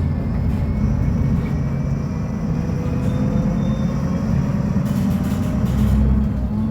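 Mercedes-Benz O500U city bus diesel engine running steadily.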